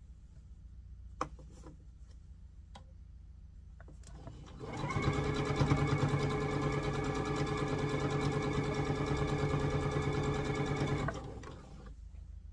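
Electric sewing machine stitching at a steady speed for about six seconds, starting about four and a half seconds in and stopping abruptly. A couple of small clicks come before it.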